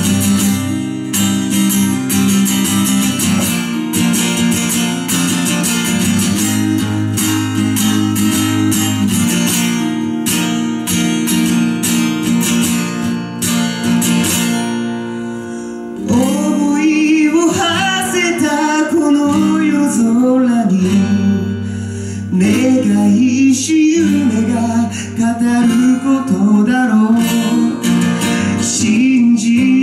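Acoustic guitar strummed alone for about sixteen seconds, then a man's singing voice comes in over the guitar and carries on to the end.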